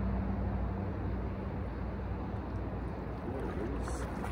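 Steady low rumble of wind on the microphone, with a brief rustle near the end.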